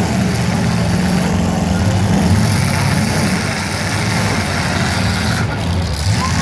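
Several demolition derby cars' engines running and revving at once, a loud steady mix with the pitch rising and falling as the drivers work the throttles.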